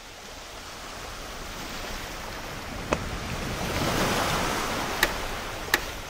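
Sea surf washing onto a sandy beach, fading in and swelling to its loudest about four seconds in before easing off. Three short sharp clicks sound over it in the second half.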